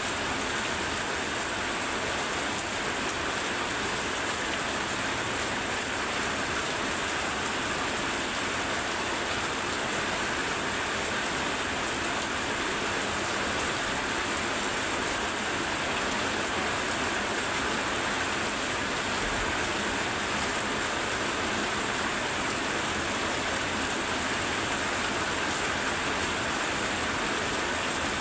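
Very heavy rain falling steadily, a dense, even hiss with no letup.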